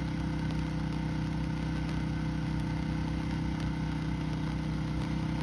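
Steady mechanical hum of a running motor, holding one constant pitch with no change in level.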